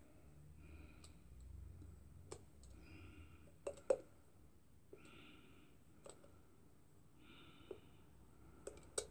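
Faint light clicks and taps of a metal dessert spoon against a small glass medicine bottle of hydrogen peroxide and plastic lids as the peroxide is poured out spoonful by spoonful. A quick double click about four seconds in is the loudest.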